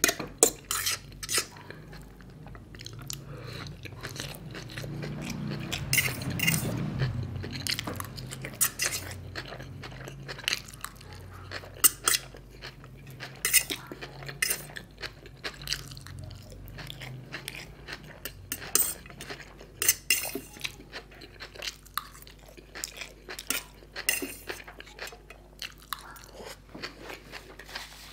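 Close-miked eating: a metal fork clinking and scraping on a stainless steel plate as it gathers fried noodles, with chewing between the irregular clinks.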